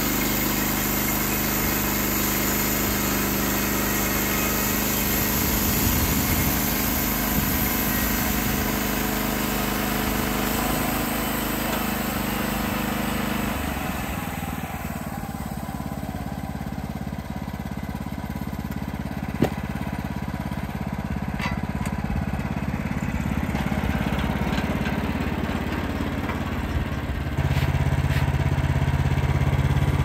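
Wood-Mizer LX55 band sawmill's 14 hp engine running steadily while the band blade cuts through a white pine log. About halfway through the cutting noise drops away and the engine runs on more quietly, with one sharp knock a few seconds later. The engine note steps up near the end.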